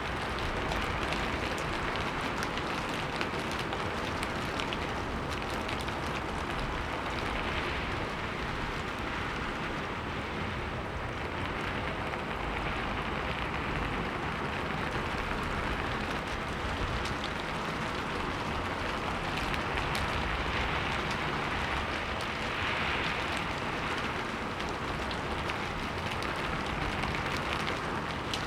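Steady rainfall, an even hiss with a dense patter of individual drops.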